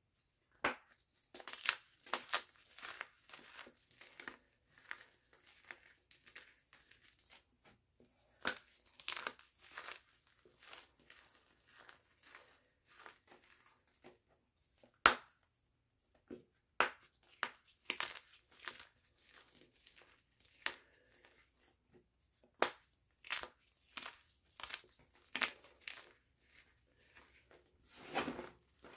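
Bare hands crushing and crumbling blocks of gym chalk: irregular dry crunches and crackles, with a sharp crack about halfway through as a block snaps.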